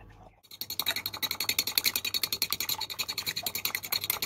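A fork beating a raw egg in a glazed ceramic bowl: fast, even clicking strokes of the fork against the bowl, starting about half a second in.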